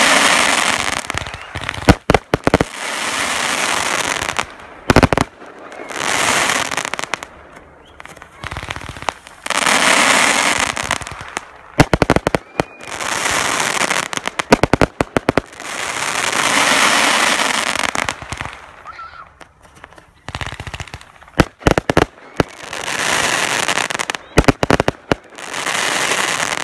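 Fireworks display: rushing hisses from ground-launched fountains and mines, each lasting a second or two, alternating with rapid clusters of sharp bangs and crackling.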